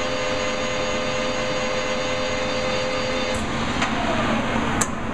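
Metal lathe running with the carriage on power feed: a steady machine whine with several tones that stops about three and a half seconds in, followed by a few sharp clicks and a short falling tone.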